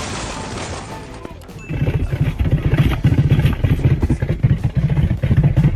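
A noisy hiss for about the first second, then, from near two seconds in, a loud engine running with a rapid low pulsing.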